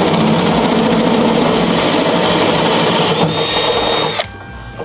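Cordless drill running a hole saw through the aluminium hull of a tinny, a loud, steady grinding whir. A high whine comes in for its last second and the drill stops suddenly near the end.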